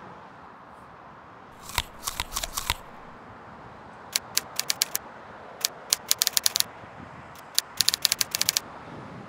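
Typewriter keys striking in quick, irregular runs of sharp clicks over a steady hiss.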